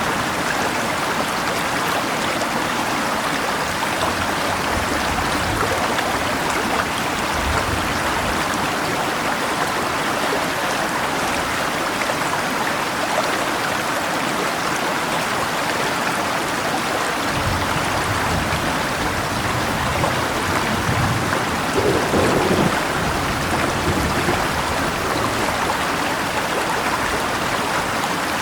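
A river rushing steadily with rain falling, as an even wash of water noise. Low rumbles of distant thunder come and go underneath, strongest a little over twenty seconds in.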